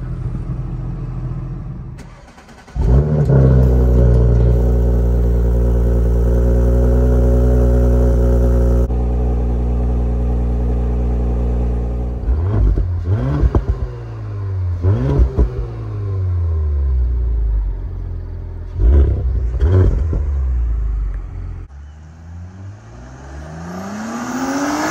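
2019 Audi S4's turbocharged V6 on its factory exhaust. About three seconds in it comes up loud and holds a steady idle, is revved in several quick throttle blips, and near the end is heard accelerating, its pitch climbing.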